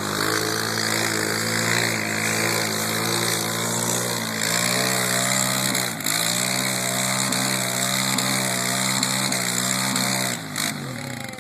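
ATV engine running hard at fairly steady revs. The engine note dips briefly about six seconds in, then picks back up, and falls away near the end.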